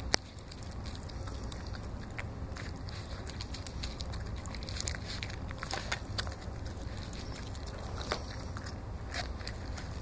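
Donovan Pinscher puppy eating raw meat from a bowl: irregular wet chewing and smacking clicks, with one sharper click just after the start, over a steady low hum.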